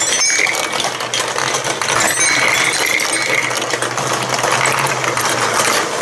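Plastic balls rolling and clattering through a plastic block marble run, dropping down a tube and onto curved track: a continuous rattle of many small clicks and knocks, with a low steady hum underneath.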